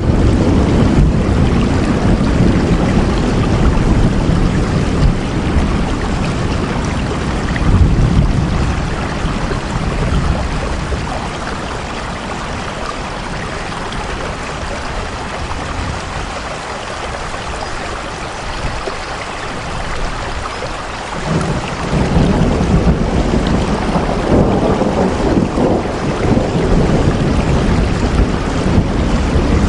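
Heavy rain falling steadily, under a deep low rumble. The rumble fades out about ten seconds in and surges back sharply a little past twenty seconds.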